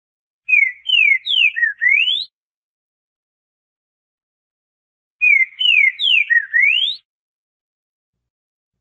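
Green-winged saltator (trinca-ferro) singing its southern-style song: a phrase of five clear whistled notes, three falling slurs, a short low note and a final rising whistle. The same phrase is sung twice, about four and a half seconds apart.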